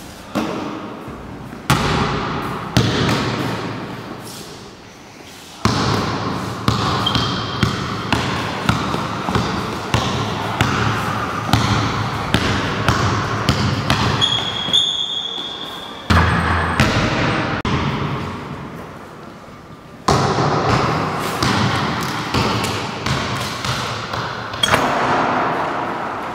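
A basketball being dribbled on a sports-hall floor: repeated bouncing thuds that echo in the hall. Two brief high squeaks come near the middle.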